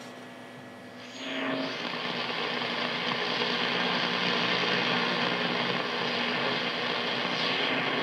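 Drake SW-4A shortwave receiver tuned across the 15 MHz band, its speaker giving a steady hiss of band noise and static. The hiss comes up about a second in, with brief steady tones passing as the dial moves off the station.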